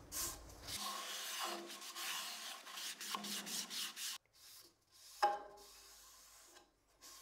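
Cloth rubbing sanding sealer onto a turned wooden piece on the lathe, in repeated wiping strokes for about four seconds, then going quieter, with a single short sharp sound about five seconds in.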